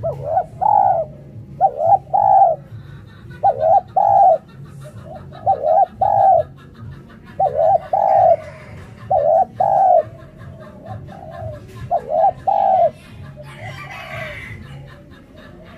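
Spotted dove cooing repeatedly: about seven phrases of two or three low coo notes each, one every one and a half to two seconds, with a longer gap before the last phrase near the end.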